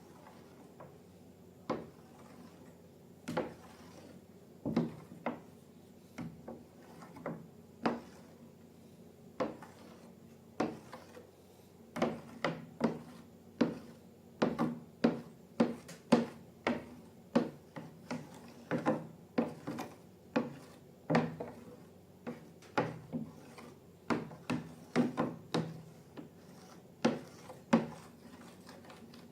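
Slime being mixed and handled by hand: a string of irregular sharp clicks, taps and squelches, sparse at first and coming much faster from about halfway through.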